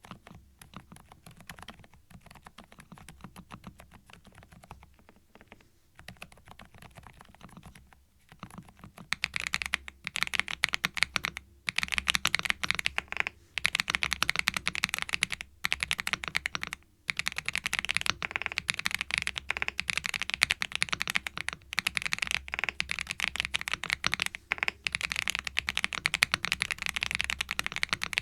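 Thinkway TV88 tenkeyless mechanical keyboard being typed on continuously in a switch sound test. The typing is fairly quiet for the first eight seconds or so, then much louder and brighter from about nine seconds in, with a few brief pauses.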